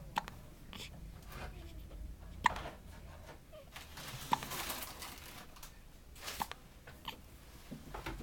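A sleeping pet's hiccups: several short, sharp hiccups spaced one to two seconds apart, the loudest about two and a half seconds in.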